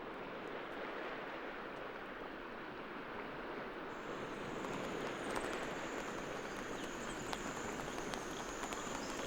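Steady outdoor field ambience, an even rushing noise, with an insect's high steady trill joining about four seconds in.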